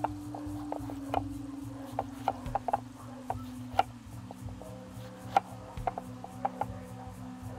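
A kitchen knife chopping a chilacayote squash: irregular sharp knocks of the blade through the flesh onto the cutting surface, over soft background music with long held notes.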